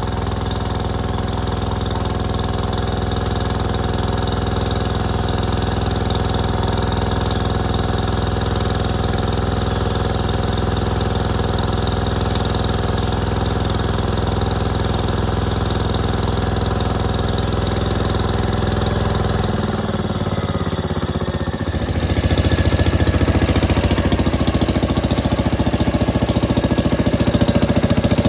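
Gravely Commercial 10A walk-behind tractor engine running steadily. About twenty seconds in, its note changes, and from about twenty-two seconds it runs louder and rougher.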